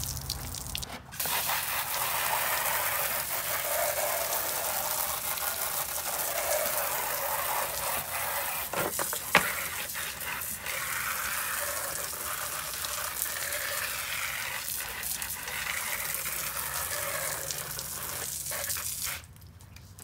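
Water spraying steadily from a hose, rinsing down a car's lower body panels and a removed plastic side skirt, shutting off near the end.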